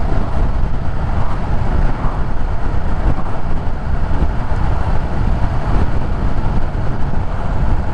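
Wind buffeting the microphone and road rush from a KTM 1290 Super Duke R motorcycle cruising at about 85 km/h, with the bike's V-twin engine droning underneath.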